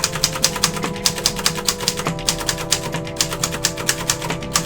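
Manual typewriter typed on steadily in a type test, the keys striking about six times a second, under background music with held tones.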